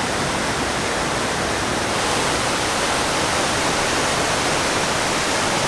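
A river rapid's whitewater rushing loudly and steadily, an even rush of water with no breaks.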